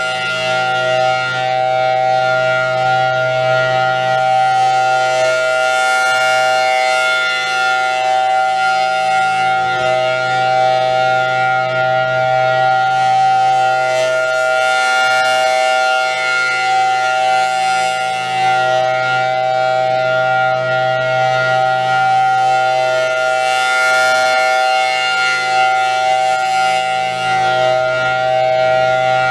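Thunderbolt 1000T rotating outdoor warning siren sounding the steady alert tone during a siren test. The held tone swells and fades as the rotating head sweeps past.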